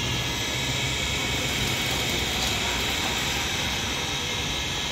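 Busy street ambience: a steady hiss with traffic, and the low hum of a passing motorbike engine that fades out in the first couple of seconds.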